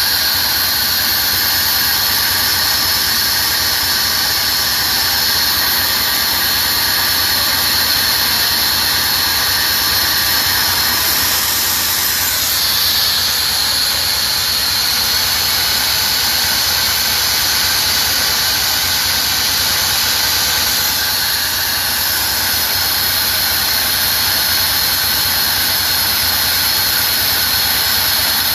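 Hangzhou Fortune oxygen-making machine running: a loud, steady hiss with high whining tones over it. The high tones shift about twelve seconds in and shift back about twenty-one seconds in.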